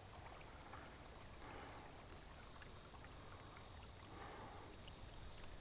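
Near silence: faint lake ambience, with water lapping softly against a boat hull.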